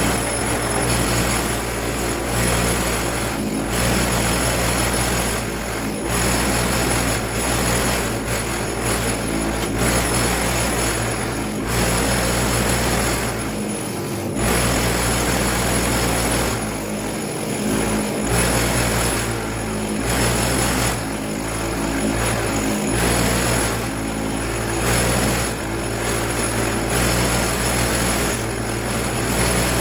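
Medium wire wheel on a motor running steadily, its bristles scrubbing rust off a pair of steel lineman pliers, the scratching swelling and dipping every couple of seconds as the work is moved against the wheel.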